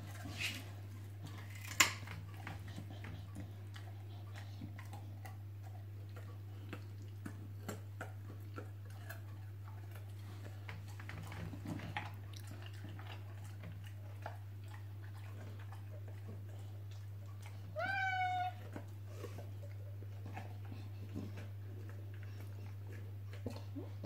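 A long-haired cat meows once, a short call about three quarters of the way through, over a steady low hum. A sharp click about two seconds in is the loudest sound, with scattered faint clicks and taps around it.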